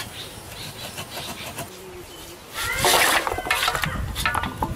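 Pieces of raw swan meat tipped out of a metal bowl and tumbling into a large metal pot: a loud run of wet slapping and clattering that starts a little past halfway.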